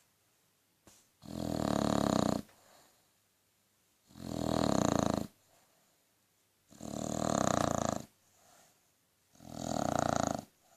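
An Australian Bulldog snoring: four loud snores, each a little over a second long, coming every two to three seconds.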